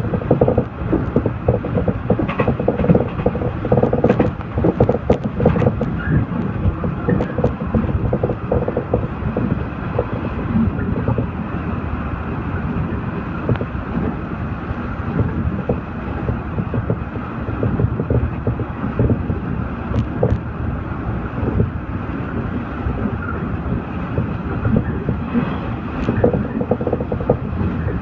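Local electric train running at speed, heard from inside the carriage: a steady rumble of wheels on the rails with frequent small rattles and clicks from the car.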